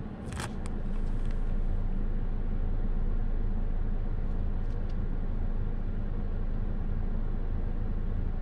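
Steady road and running noise heard inside the cabin of a moving Toyota Corolla Touring, a low even rumble with tyre hiss. A few short clicks come about half a second in.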